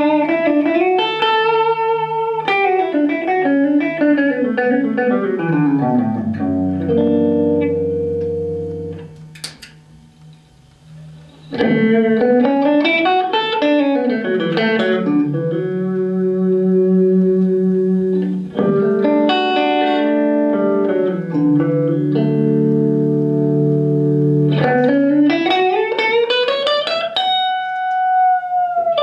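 Clean-toned electric guitar played through a small combo amp, first dry and then with light compression from an Artec SE-CMP compressor pedal. Quick runs of picked notes and held chords, with a short pause about ten seconds in, then more runs and notes left ringing out.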